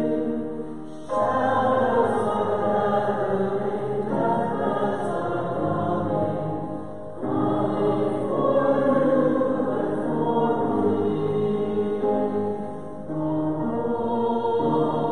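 A church congregation singing a hymn together, in long held phrases that pause briefly about a second in, about seven seconds in and near the end.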